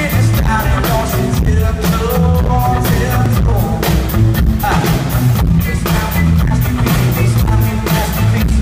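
Live band playing a pop song: a drum kit keeping a steady beat with an electric guitar, and a male voice singing over it through the PA.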